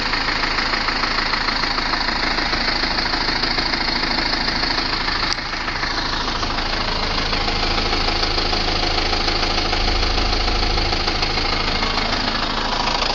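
Renault Laguna II 2.2 dCi four-cylinder turbodiesel engine running steadily with a knocking rattle, dipping briefly about five seconds in. This is the strange sound that the owner thinks may be a bad air filter.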